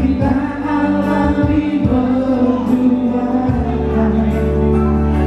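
Male vocal trio singing together into handheld microphones, live, over steady instrumental backing with a low bass line.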